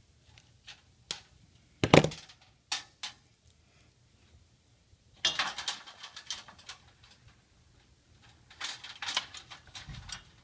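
Small clicks from wire strippers and the rustle and scrape of electrical wires being handled over a sheet-metal light fixture, with one sharp knock about two seconds in.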